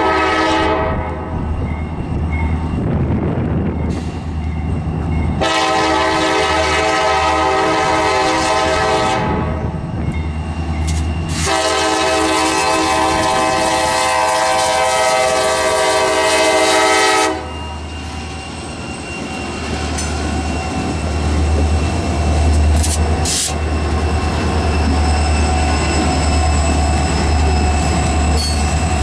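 CSX freight train's lead diesel locomotive sounding its multi-chime air horn for a road grade crossing: a blast that ends about a second in, a long blast a few seconds later, then a longer one of about six seconds. After the horn stops, the diesel engines of the locomotive consist and the freight cars' wheels run past with a steady low rumble and wheel clicking.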